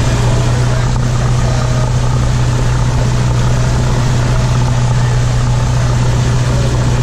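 Cessna 172's piston engine and propeller running at a steady speed, heard from inside the cockpit: an even, low drone with no change in pitch.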